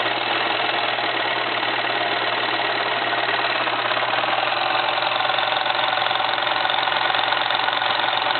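Pfaff 213 sewing machine running steadily at speed with no needle fitted: a fast, even whirr of the mechanism over a steady low hum. The machine sounds good, though it may need repair, since a needle bent when the wheel was turned by hand.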